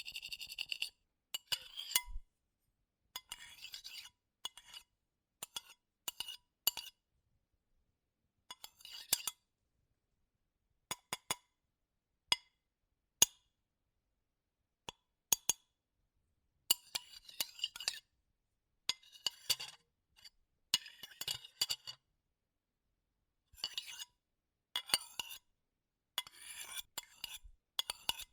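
Metal spoon scraping and clinking on a ceramic plate, as when eating from it: short, high-pitched scrapes and sharp taps, with silent gaps of up to a couple of seconds between them.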